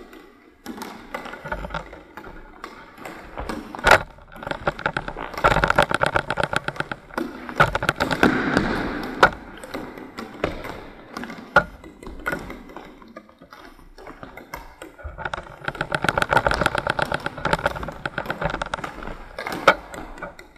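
A floorball goalie's pads and gear scraping and scuffing across a hall floor in two longer stretches, with several sharp knocks from the ball and sticks.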